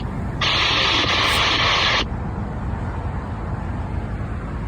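Scanner radio static on a railroad channel: a band of hiss carrying a steady tone, keyed open for about a second and a half and then cut off suddenly, over a low rumble.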